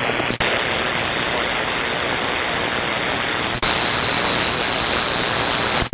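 Steady hiss of static from an air traffic control radio frequency. Two brief dropouts break it, about half a second in and about three and a half seconds in.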